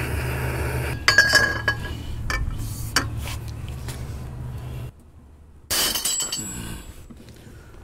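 Propane torch flame hissing for about a second. Then metallic clicks and clinks from the socket and breaker bar on the stuck axle nut. Near the end comes a sudden loud crack and metallic clatter: the half-inch breaker bar shears off under the load and its pieces fall onto the concrete floor.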